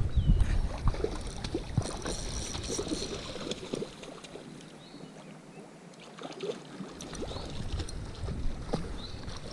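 Wind buffeting the microphone, heaviest in the first few seconds, dropping away around the middle and returning more lightly, over a steady rush of stream water, with scattered light clicks and knocks.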